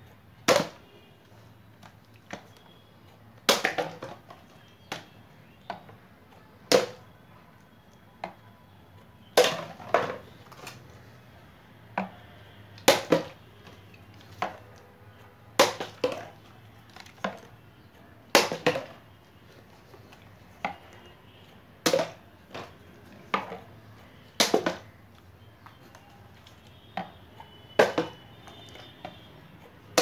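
A partly filled plastic water bottle being flipped again and again onto a Rubik's cube on a cube mat, each landing a sharp knock or clatter of bottle against cube and mat. There are over a dozen of these, spaced about one to three seconds apart.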